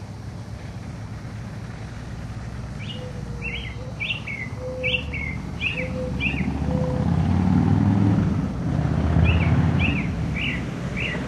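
Fuel-injected 95-inch (1550 cc) V-twin of a 2002 Harley-Davidson Road King idling through Hooker slip-on mufflers, its low rumble swelling louder for a couple of seconds past the middle. Over it a bird calls in two runs of short, quick down-slurred chirps.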